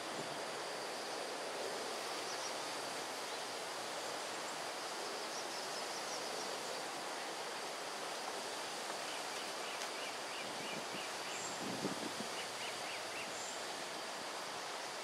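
Quiet forest background: a steady even hiss with a thin, steady high tone running through it. Faint high chirps from small birds come in short runs in the second half, with a brief low thump about twelve seconds in.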